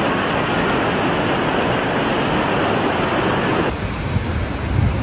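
Floodwater rushing as a loud, dense, steady noise. About three-quarters of the way in it cuts off suddenly to a lower, duller rumble.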